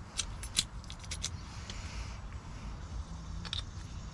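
Light metallic clicks and clinks of small lock-cylinder parts being handled during a rekey: a cluster of sharp ticks in the first second and a half, another near three and a half seconds, over a low steady hum.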